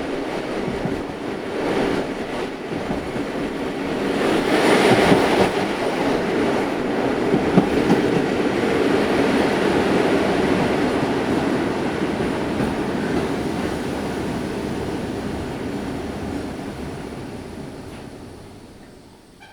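A train running by: a dense rumble that swells to its loudest about five seconds in, then slowly fades away.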